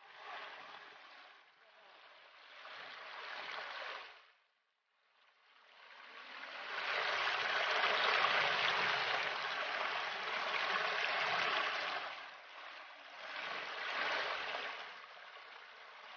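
Small forest stream rushing and splashing over mossy rocks in little cascades. It is loudest through the middle, where the water falls close by, and drops out briefly about a third of the way in.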